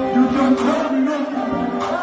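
Dancehall music playing loud over a concert sound system, heard from within the crowd.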